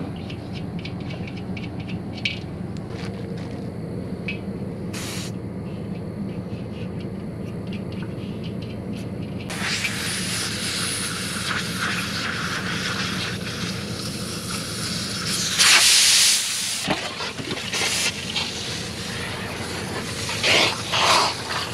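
Well pressure tank being emptied: a hiss of escaping pressure starts about ten seconds in, followed by louder rushes of water pouring out near the end. A steady low hum runs underneath.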